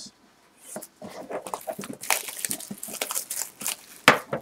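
Crinkly plastic wrap being picked at and peeled off a small metal trading-card tin, a dense run of small crackles and clicks, with a sharp knock from the tin about four seconds in.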